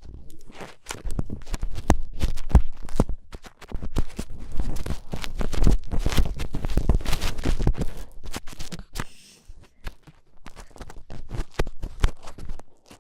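Ear-cleaning ASMR: scratching and rubbing right at a microphone, a dense run of crackly scrapes and clicks that thins out and quietens for a moment a little past the middle.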